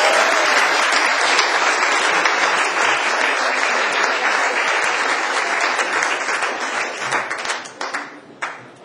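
Audience applauding. The applause starts to fade about seven seconds in and dies away to a few last scattered claps.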